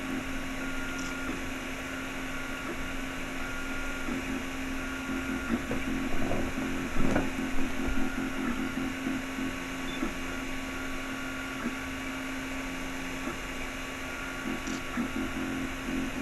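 Anet A8 3D printer printing: a steady hum from its fans with the stepper motors whining in short on-off tones as the print head moves back and forth. About seven seconds in there is a brief louder stretch of rattling knocks.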